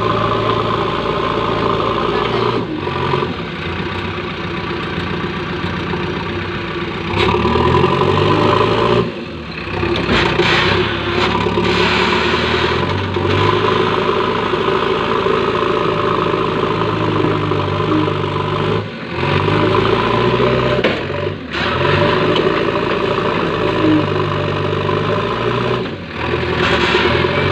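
JCB 3DX Eco backhoe loader's diesel engine working under load, its pitch rising and falling several times as the machine pushes its loader bucket through deep soft compost it is stuck in.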